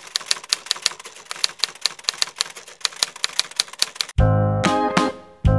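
Typewriter keys clacking in a quick, uneven run, as the title text is typed out. About four seconds in, the clacking stops and music starts with loud bass notes.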